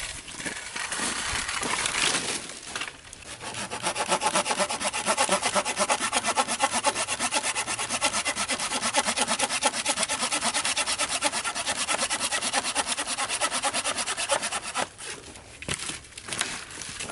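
Small hand saw cutting through a dry dead branch with fast, even back-and-forth strokes. It starts about three seconds in after a rustle and clatter of branches, and stops a couple of seconds before the end, followed by a few knocks of wood.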